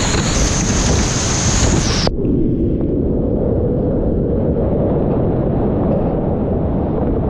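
Whitewater rapids rushing and crashing close to a kayaker's camera mic. About two seconds in the sound suddenly turns muffled and dull, the hiss cut off and only a low, heavy rush left.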